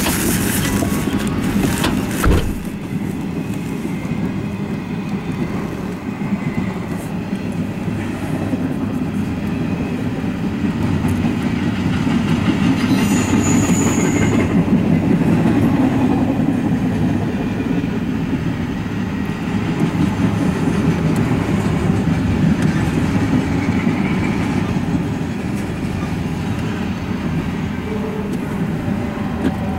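Freight train of empty double-stack intermodal well cars rolling past, the steady noise of steel wheels on rail. A sharp knock comes about two seconds in, and a brief high-pitched tone near the middle.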